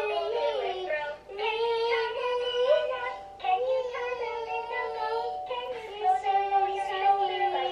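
A children's song sung in a high, synthetic-sounding voice from an electronic musical toy, in short melodic phrases with brief pauses between them.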